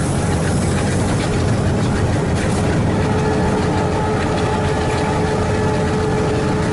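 Steady running noise of a train hauled by a WDG-3A Alco diesel locomotive: the locomotive's 16-cylinder ALCO 251 diesel engine chugging, mixed with the rumble of the coaches on the rails. A faint steady whine comes in about halfway.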